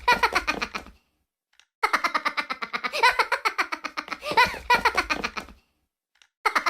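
High-pitched, rapid giggling laughter: a short clip played on a loop. It cuts off to dead silence about a second in, starts again just under a second later, stops again about a second before the end, and restarts just before the end.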